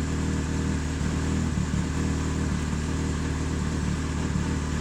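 2005 Yamaha R6's inline-four engine idling steadily.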